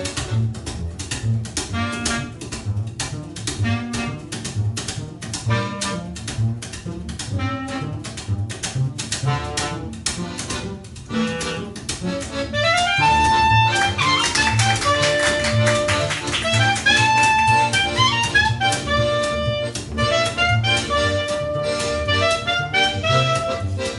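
Small live jazz ensemble of accordion and double bass with a chording instrument playing an instrumental tune. A low bass line and rhythmic chopped chords carry the first half; about halfway a louder sustained melody line comes in over them.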